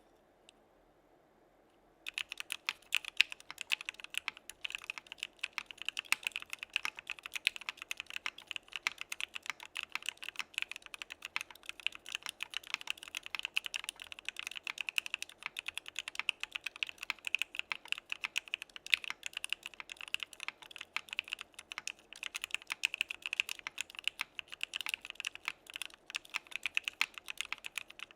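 Rapid, continuous typing on a mechanical keyboard with lubed Gateron North Pole linear switches mounted in an aluminum plate (Geonworks Frog), starting about two seconds in after a short quiet.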